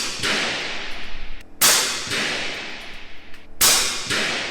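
FX Impact M3 .22 PCP air rifle firing 40 grain slugs, two sharp shots about two seconds apart. Each shot rings out in an indoor range's echo, and the echo of a shot just before carries in at the start.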